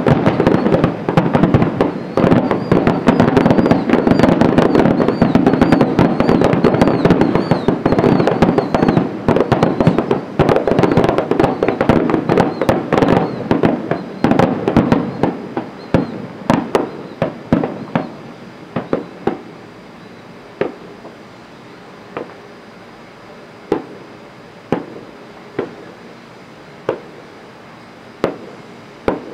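Fireworks display: a dense barrage of rapid bangs and crackling for roughly the first fifteen seconds, then thinning to single reports about a second apart.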